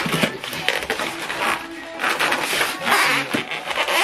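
Polystyrene foam packing rubbing and scraping against itself and the printer as it is handled and pulled apart, in several uneven noisy stretches.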